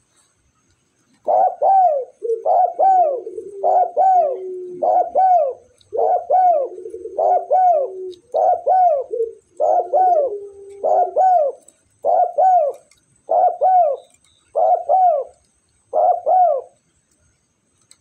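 Spotted dove (tekukur) cooing over and over: a run of about thirteen short arched coo phrases, roughly one a second, starting about a second in and stopping near the end, with a lower held tone under the first half of the run.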